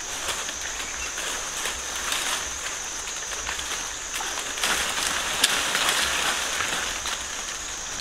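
Leaves and branches rustling, with twigs snapping, as a person pushes through dense forest undergrowth; it grows louder from about four and a half seconds in. A steady high-pitched hum runs underneath.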